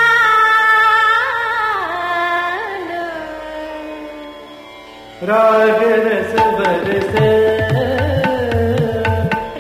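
Indian classical music: a long held melodic phrase with ornamental slides that fades away, then about five seconds in a new passage starts abruptly with tabla strokes under the melody.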